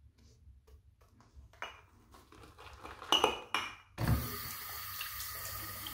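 A few light clinks and knocks as the shaving cup and brush are handled, then about two-thirds of the way in a bathroom sink tap is turned on and water runs steadily.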